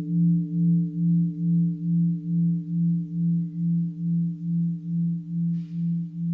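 A mindfulness bell ringing out after a strike: one low, humming tone that wavers in loudness about two to three times a second while slowly dying away, its higher overtones fading first.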